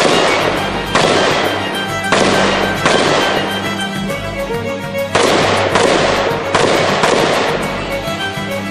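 Eight rifle shots from an AR-15-style rifle, in two quick groups of four with a pause of about two seconds between them, each shot ringing out briefly. Background music plays throughout.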